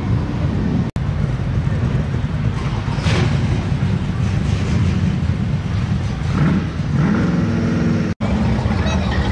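A car engine running with a steady low rumble, rising in pitch about six and a half seconds in as it is revved. The audio cuts out for an instant twice, about a second in and near the end.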